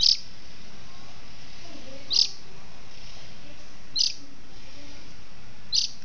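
A small bird giving four short, high-pitched chirps, about one every two seconds, over a steady hiss.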